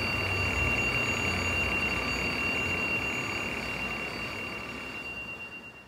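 Phone alarm ringing with one steady high tone, fading away over the last couple of seconds.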